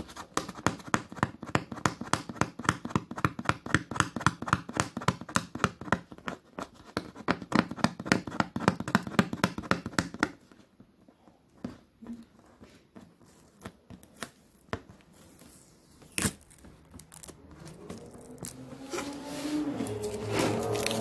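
Fingernails scratching and picking at packing tape on a cardboard box: a rapid run of scratches, several a second, for about ten seconds, then scattered clicks and taps. Near the end a wavering pitched sound comes in and grows louder.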